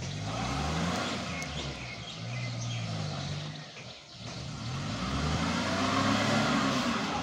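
Maruti Suzuki Omni van's three-cylinder petrol engine revving hard in two long surges, its pitch climbing and then sagging, with a dip about four seconds in. The rear-wheel-drive van is stuck and straining under load to climb up out of the field.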